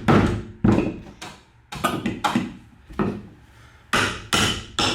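A hammer knocking on wooden framing: about eight sharp blows at an irregular pace, with a short ring after each in the small enclosed room.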